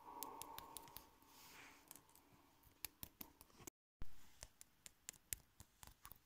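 Quiet, scattered sharp clicks and taps of small plastic Littlest Pet Shop figurines being hopped and set down on a wooden floor by hand, with a brief drop to dead silence about four seconds in.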